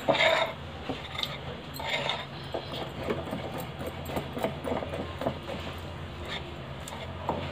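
A spoon stirring thick cake batter in a glass bowl: irregular clinks and scrapes of the spoon against the glass.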